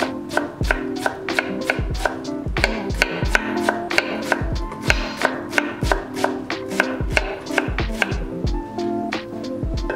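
Chef's knife dicing an onion on a wooden cutting board: sharp knife strokes against the board in a steady rhythm, about three to four a second, over background music.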